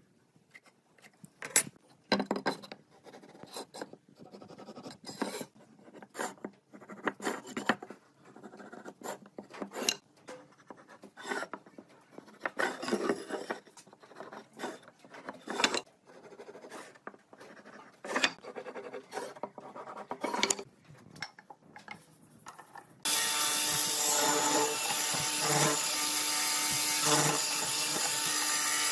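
Wooden pieces and hand tools being worked: irregular knocks, clicks and rubbing strokes. About 23 s in, a power tool comes in suddenly, running steadily and loudly.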